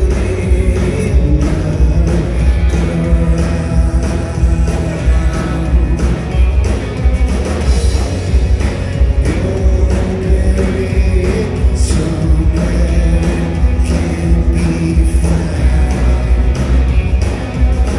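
Rock band playing live through a club PA, heard from within the crowd: a steady drum beat with electric guitars and bass, and a male singer's voice over it.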